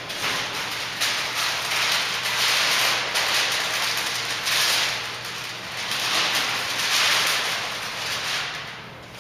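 Compressed-air paint spray gun hissing in repeated passes of a second or two, rising and falling as the trigger is worked, over a steady low hum.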